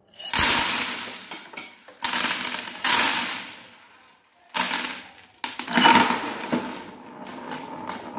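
Plastic beads and marbles pouring out of clear plastic cups onto a plastic tray, clattering in about five loud spills that each die away into rattling as the beads roll and scatter.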